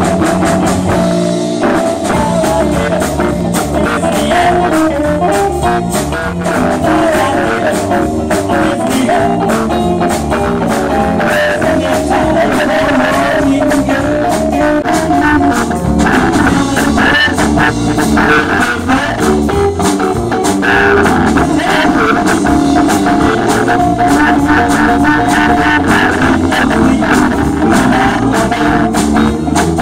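A live rock-and-roll band playing: an orange Gretsch-style hollow-body electric guitar, electric bass and a drum kit, with a man singing into the microphone.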